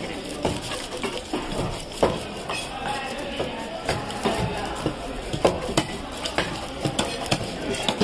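A large knife scraping the scales off a whole fish on a wooden chopping block, in a steady run of short rasping scrapes and clicks, about two a second.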